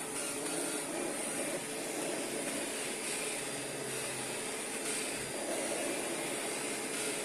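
Kirby G5 upright vacuum cleaner running steadily, its motor keeping a constant hum with a high whine above it.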